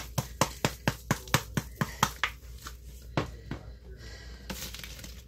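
Metal kitchen tongs clicking against a metal tray while picking up fries: a run of sharp clicks, about four a second, for some two seconds, then two more clicks and quieter handling.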